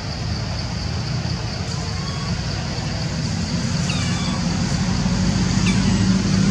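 A low, steady rumble of the kind road traffic or an engine makes, growing slightly louder, under a steady high-pitched drone. A few faint, short, falling chirps are heard about four seconds in and again near the end.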